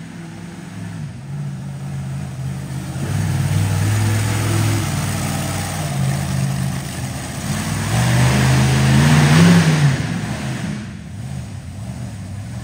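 Monster truck engine revving as the truck drives, the pitch rising and falling with the throttle. It grows louder with a rising rev about nine seconds in, then eases back off.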